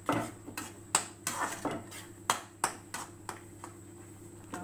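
Metal spatula stirring a thick cornflour-thickened gravy in a pan, knocking and scraping against the pan in irregular sharp clicks, about two a second.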